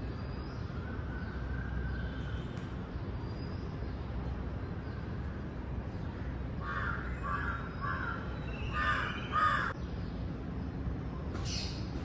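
Crows cawing: a run of about four caws a little past halfway, then two louder caws, and a single higher call near the end, over a steady low background rumble.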